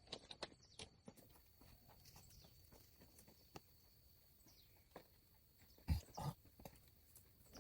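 Quiet, scattered clicks and knocks, with two louder thumps close together about six seconds in.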